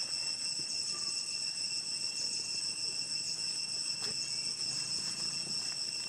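Steady, high-pitched drone of insects, several unchanging shrill tones sounding together, with a few faint ticks about a second in and again about four seconds in.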